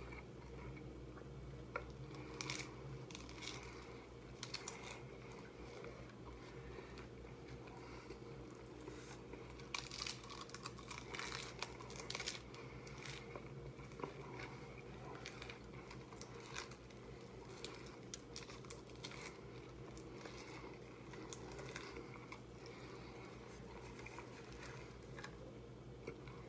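Crunchy hard-shell tacos being bitten and chewed fast: scattered crunches and crackles, thickest about ten to thirteen seconds in.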